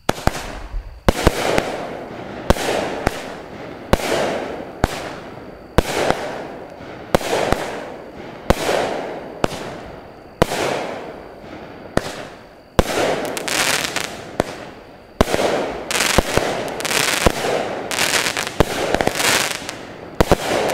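A 16-shot 200-gram Winda Fireworks 'Strong Man' cake firing in sequence. Sharp reports come roughly every second, closer together in the second half, and a fading rush of noise follows each one as the shells break hard.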